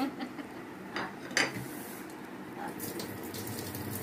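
Two sharp clicks a little under half a second apart, the second louder, followed by soft rustling.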